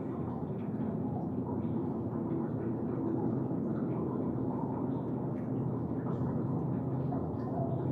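Steady low rumbling drone with faint held low tones underneath, even in level throughout.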